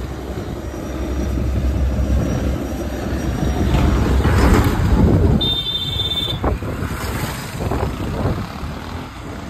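Boat engine running with a low rumble that fades about halfway, mixed with wind noise on the microphone; a short high tone sounds a little past the middle.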